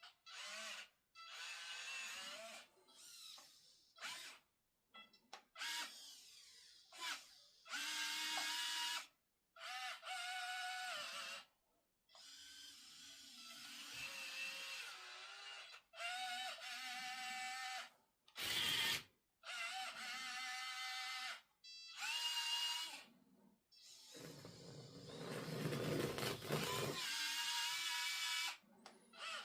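Small electric gear motors of an RC 1:50 scale excavator whining in short start-stop bursts, each about a second long, as the controls are worked. A rougher, noisier rumble joins about three-quarters of the way through.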